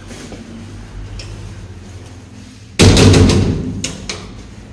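A heavy apartment-building entrance door swung shut with a loud bang and rattle about three seconds in, then a few lighter clicks; the door did not latch.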